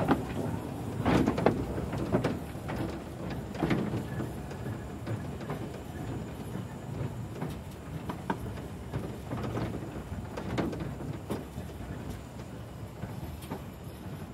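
Narrow-gauge train rolling slowly over points and rail joints: irregular clunks and knocks from the wheels over a steady rumble. The knocks are loudest in the first few seconds and then ease.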